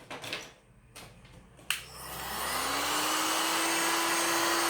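A few light handling clicks, then a switch click and a hot-air blower starting up. Its motor hum rises in pitch over about a second and then runs steadily under a loud rush of air. It is heating the adhesive under a phone battery to soften it for removal.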